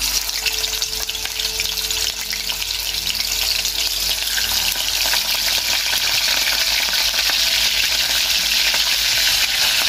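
Fish pieces frying in hot oil in a nonstick pan: a dense, steady sizzle full of fine crackles, growing a little louder, as the pieces are turned with a fork.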